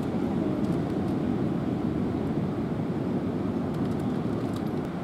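Steady wind rumble on the microphone mixed with beach surf.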